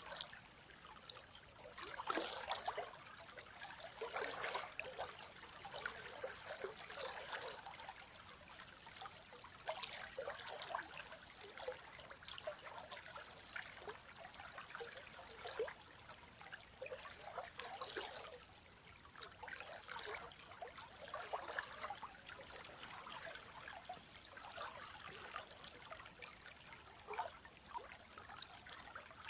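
River water flowing, a light, uneven splashing that swells and eases every few seconds.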